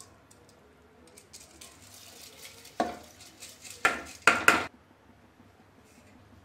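Soaked rice sliding out of a steel bowl into coconut milk in a pressure cooker, then the bowl knocked against the cooker's metal rim four times, the last two close together, to shake the last grains out.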